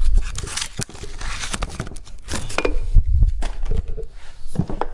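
Handling noise from a new double bass drum pedal being turned over in its packaging: rustling cardboard and plastic wrapping, with many sharp clicks and knocks of metal parts and a few dull thumps.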